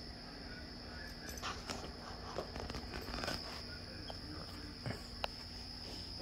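Cloth rustling, with light clicks and knocks, as a belt is wrapped and fitted around a person's waist. A faint, steady high-pitched whine runs underneath.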